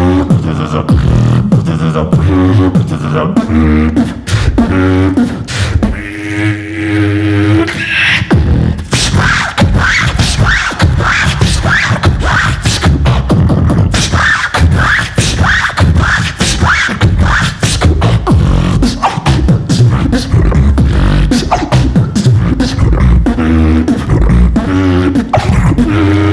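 Solo beatboxing: a fast, loud beat of mouth-made kick and snare sounds over deep bass, with a held hummed tone about six seconds in and a run of quick, evenly repeated high chirps through the middle.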